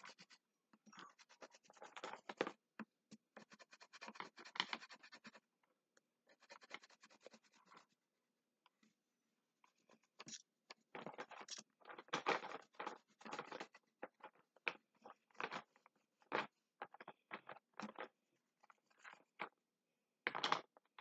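Cra-Z-Art wax crayon scribbling on paper, faint rapid back-and-forth strokes in spells with short pauses, the longest a little before the middle, as an area is filled in with colour.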